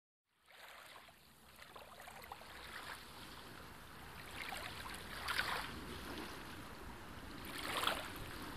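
Faint rushing noise that fades in just after the start and swells briefly twice, midway and near the end.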